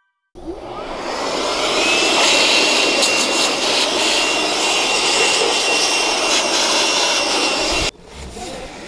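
Cordless battery blower running, rising to a steady rush of air with a thin high whine over its first second or so, then cutting off abruptly near the end; it is blowing dust off a kerosene heater.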